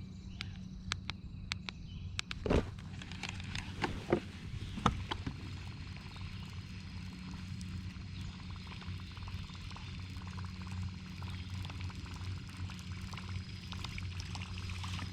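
Electric trolling motor on a fishing kayak running with a steady low hum, water trickling and sloshing around the hull, and a few sharp knocks in the first five seconds or so.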